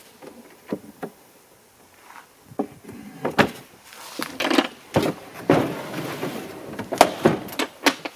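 Large wooden slide-out drawer in a pickup truck bed being pushed shut: scraping as it slides, with a series of wooden knocks and clunks, the loudest about three and a half seconds in and again near seven seconds.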